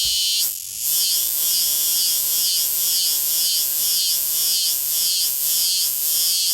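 Cicada (the 'six o'clock bee') singing a loud, shrill buzz that swells and dips about twice a second, with a brief break about half a second in.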